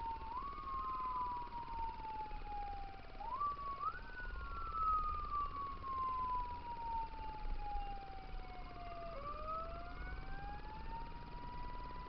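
Fire engine siren winding up sharply and then falling slowly in pitch, again and again, before rising more slowly to a steady high pitch near the end. A low road rumble runs underneath.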